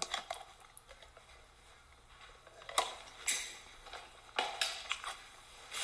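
A few sharp, light clicks and clinks of small hard parts being handled, spaced irregularly over the second half after a quiet start.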